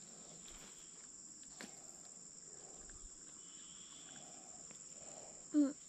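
Insects trilling steadily at a high pitch, with a short vocal sound from a person near the end.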